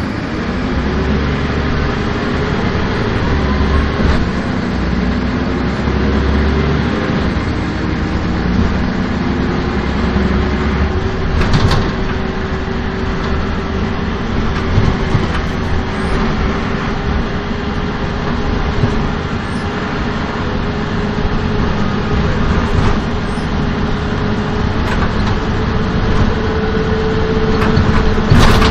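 Karosa B931 city bus under way, heard from inside: the Renault MIHR diesel engine and ZF automatic gearbox running, with a whine that rises slowly in pitch. There is a sharp knock about twelve seconds in and another near the end.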